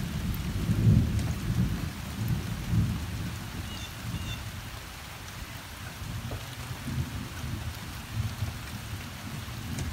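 Thunder rumbling low, loudest in the first couple of seconds, then dying away and swelling a little again near the end, over light rain falling.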